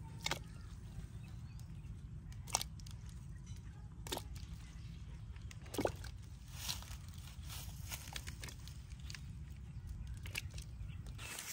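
Pieces of carrot and other vegetables dropped by hand into a large aluminium pot of water, landing with several separate plops and splashes, over a steady low rumble.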